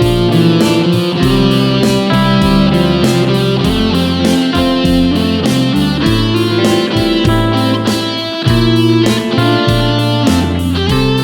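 Background music: a rock song led by electric guitar over a bass line and a steady drum beat.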